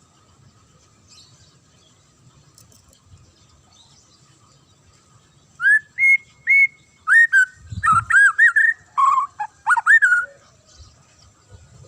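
White-rumped shama (murai batu) singing: after a few faint seconds, a burst of loud, clear whistled notes that swoop up and down, lasting about five seconds. A brief low thump comes about eight seconds in.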